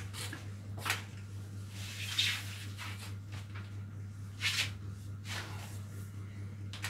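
Hands rubbing and gripping a cotton T-shirt during a shoulder and arm massage: several short rustling swishes, the longest about two seconds in, over a steady low hum.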